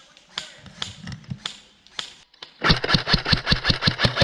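A few scattered sharp clicks, then about two and a half seconds in an airsoft electric gun opens up on full-auto: a rapid, even train of shots, about ten a second, over a steady motor hum.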